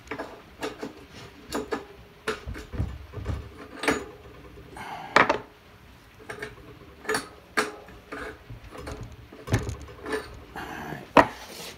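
Irregular metal clicks, knocks and scrapes of three-speed coaster brake hub internals being worked and pried loose by hand, as a stuck part is freed.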